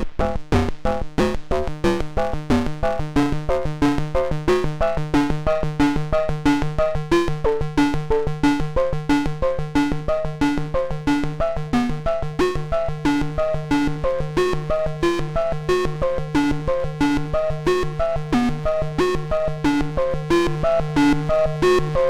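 Moog Matriarch analog synthesizer playing a fast repeating sequence of short notes, about four a second, with a pulsing low bass note under a shifting higher melody line.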